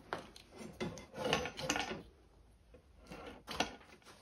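Cable chain being handled, its link flaps worked open: a series of short clicks and rattles, a pause in the middle, then a few more clicks.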